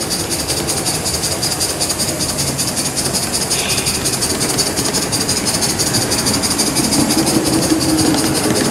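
Accucraft Gauge 1 live-steam Southern Pacific F4 2-10-2 locomotive running, its exhaust making a fast, even chuff within a steady steam hiss, with wheels rolling and clicking over the rails. A short wheel squeal comes about seven seconds in.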